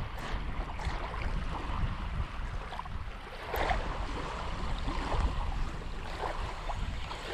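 Small wind-driven waves lapping at a gravel shoreline, with wind rumbling on the microphone.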